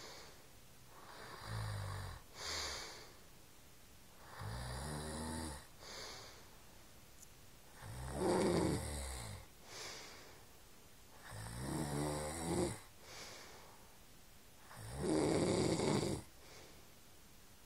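A man snoring: five snores about every three and a half seconds, each a long low rattle followed by a shorter second breath.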